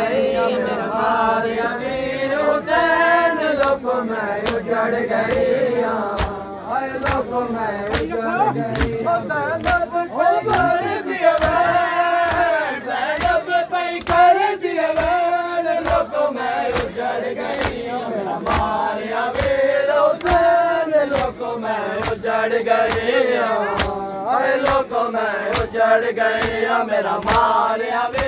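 A crowd of male mourners chanting a noha together in unison, with rhythmic chest-beating (matam). From a few seconds in, the hand slaps fall evenly, about one and a half a second, in time with the chant.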